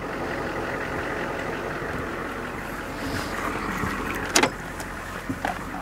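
A vehicle engine running steadily, with a sharp click about four and a half seconds in and smaller clicks near the end.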